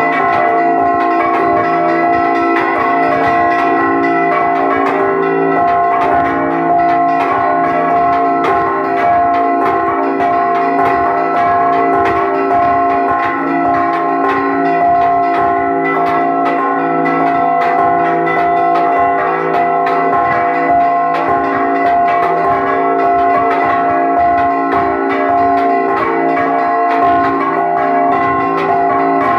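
Bronze church bells rung by hand in a Mexican repique, heard close up in the belfry: several bells struck in fast, overlapping, continuous strokes over a steady ringing hum, with no pause.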